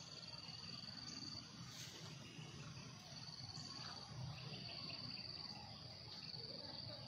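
Insect shrilling steadily at one high pitch, with a break of about a second and a half near the start, over a faint low rumble.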